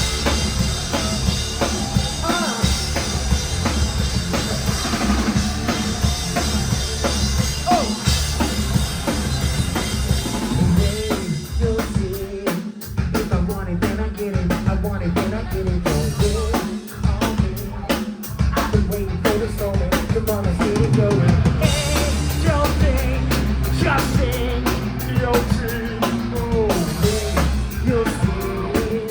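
Live rock band playing loud, with guitars and a heavy drum kit; the kick and snare hit a fast, steady beat that grows denser in the second half.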